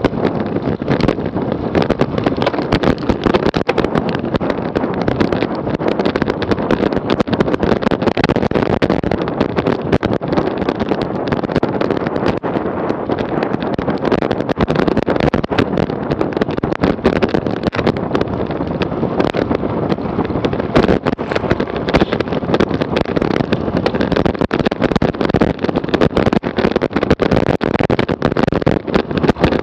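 Wind rushing over the microphone of a camera on a road bike ridden at speed: a loud, steady rush with many short crackles through it.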